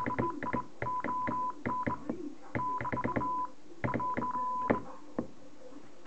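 Morse code sent on an Admiralty Pattern 7681 straight key: a steady beep switched on and off in dots and dashes, each press and release of the key's lever giving a sharp click. The sending stops a little before five seconds in, with one last click shortly after.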